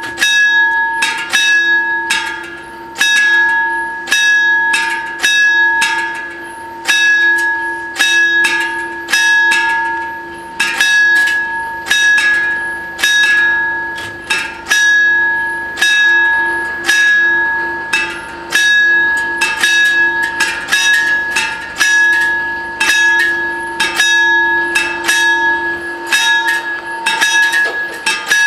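Level-crossing warning bells on an Italian FS 64 crossing ringing continuously, struck rapidly a few times a second with each strike ringing on: the crossing is closed for an approaching train.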